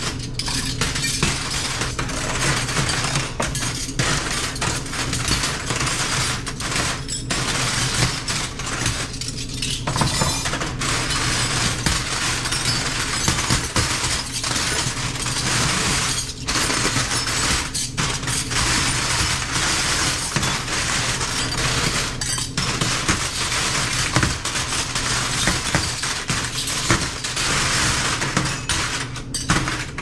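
Stainless steel spoons and forks clinking and clattering against each other without pause as handfuls are picked out of a heaped trough of silverware and sorted. A steady low hum runs underneath.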